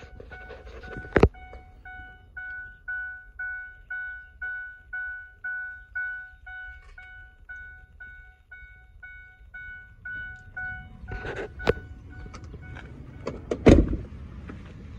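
Ford F-150 cabin warning chime dinging steadily, about two pings a second, with the cab's door standing open. It stops at about eleven seconds in. There is a sharp thunk about a second in, and a few loud thunks near the end.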